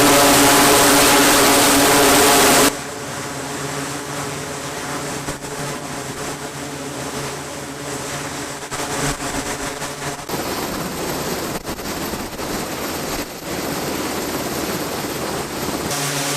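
Loud rushing noise with a pitched drone that cuts off suddenly about three seconds in, followed by steady engine-like running noise with a low hum.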